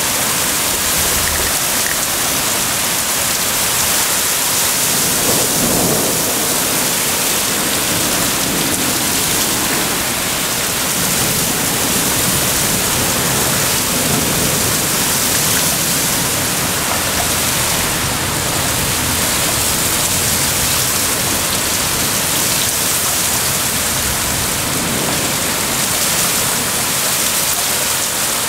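Heavy thunderstorm downpour: a loud, steady hiss of rain pounding on pavement and roofs, with a low rumble of thunder about five seconds in.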